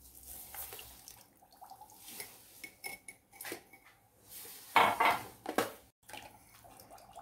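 Granulated sugar poured from a cup into a stainless steel saucepan of water, with light clinks of the cup against the pan. A rush of pouring about five seconds in is the loudest part.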